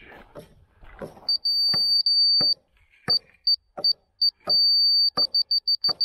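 DeWalt laser receiver on a grade rod beeping as it picks up the rotating laser beam: one high tone alternating between held tones and runs of quick short beeps, with a few sharp knocks from the rod. The beep pattern is the receiver's grade signal: a steady tone means on grade, quick beeps mean off grade.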